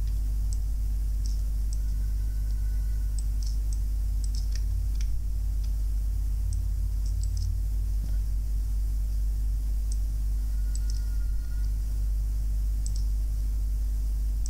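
Computer mouse clicking every second or so, in short light ticks, over a steady low electrical hum.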